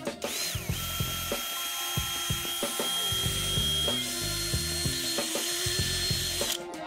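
Cordless drill with a hex bit turning the parking-brake adjuster mechanism inside a rear brake caliper bore: the motor whines up to speed, runs steadily, steps up to a higher pitch about four seconds in, then stops shortly before the end.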